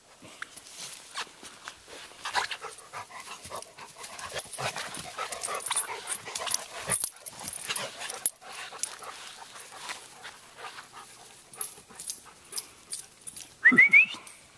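A Welsh Springer Spaniel and a larger yellow dog play-wrestling on grass, with quick scuffles and dog breathing and mouthing noises. Near the end one dog lets out a short, high, rising yelp, the loudest sound here.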